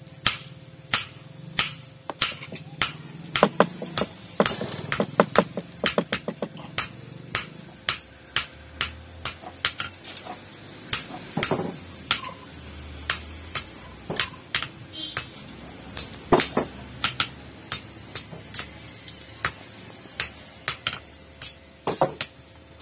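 Hammer striking hot iron on an anvil, a steady run of blows about two a second with a quicker flurry about five seconds in, some blows ringing briefly.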